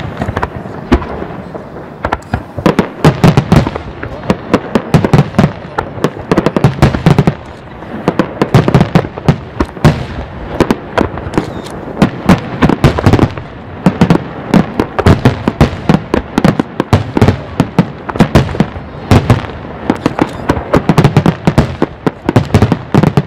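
Star mine fireworks barrage: aerial shells bursting in rapid succession, a dense run of sharp bangs several a second over deeper booms, without let-up.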